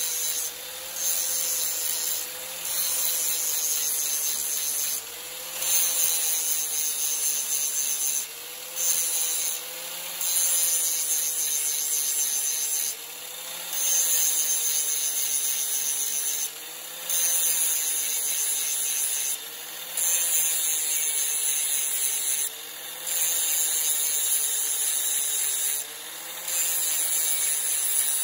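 Angle grinder running steadily while its abrasive disc is pressed on and off the mild-steel teeth of a hedge trimmer blade to sharpen them. The grinding rasp comes in about a dozen passes of one to three seconds each, and the motor's hum shifts slightly in pitch with each pass.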